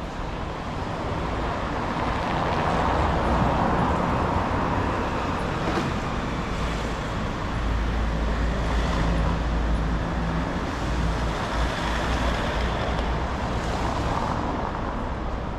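Road traffic: vehicles passing close by, with swells of tyre and engine noise about three seconds in and again near the end, and a low engine rumble from about halfway through.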